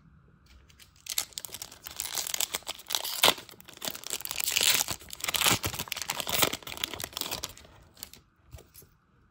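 Baseball card pack wrapper being torn open and crinkled: dense crackling for about six seconds, followed by a few light ticks near the end.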